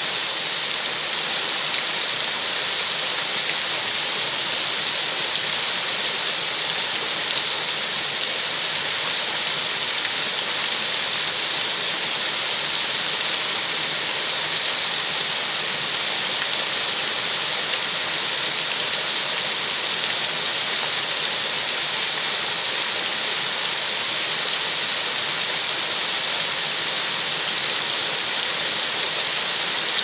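Shallow water running over stone steps in a rocky channel: a steady rushing splash with no let-up.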